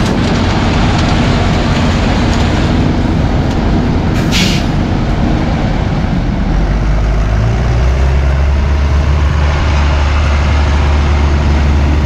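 A New Holland T7 tractor's diesel engine and a sugarcane harvester are running together as cane is loaded into a towed trailer, making a loud, steady machinery noise. There is a short hiss of air about four seconds in. From a little past halfway, a deep engine drone grows stronger as the tractor pulls the loaded trailer.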